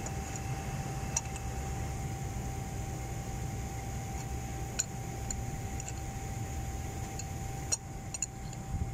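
A metal spanner clicking a few times against a pump's threaded pipe fitting as it is worked loose, over a steady machine hum with a thin whine; the whine cuts off with a click near the end.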